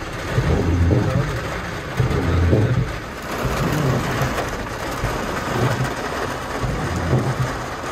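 Rain on a car's windscreen and roof, heard from inside the cabin, over the car's running engine. A low rumble swells and fades every second or two.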